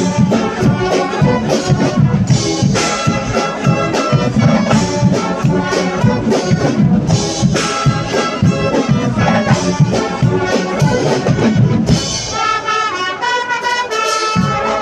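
Guggenmusik carnival band playing loud brass music, with trumpets and trombones over a steady bass drum and percussion beat. About twelve seconds in, the drums drop out and the brass carries the tune alone briefly before the beat returns.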